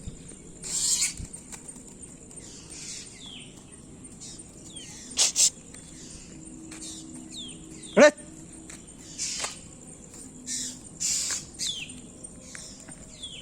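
Black drongo giving short harsh screeches and falling chirps in distress while caught and struggling. One loud sharp cry about eight seconds in.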